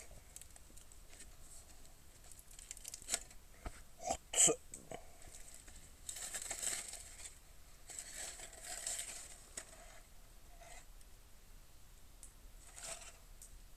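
Aluminium foil crinkling and tearing as a foil-wrapped package is peeled open by hand, in several short bursts of rustling with a few sharp clicks.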